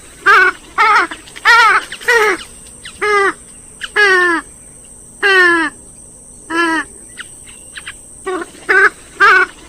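Gallinule (swamphen or moorhen family) calling: a series of about a dozen loud calls, most of them falling in pitch, in uneven runs with short gaps between.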